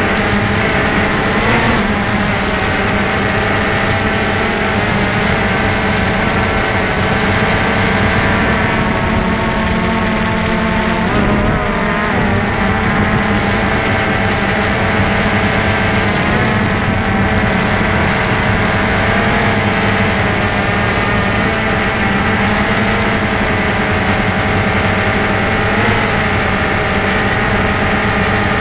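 DJI Phantom 2 quadcopter's four brushless electric motors and propellers whirring steadily and loudly, heard from a camera mounted on the drone itself. The pitch wavers briefly several times as the motors change speed.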